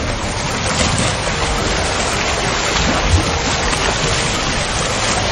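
Water rushing and splashing over rocks, a steady hiss.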